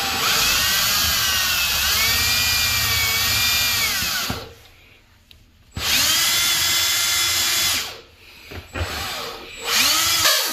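Milwaukee cordless drill boring a pilot hole straight down through the floor, its motor whine rising and falling in pitch as the bit loads up. It runs in one long spell, stops, runs again for about two seconds, then gives two short bursts near the end.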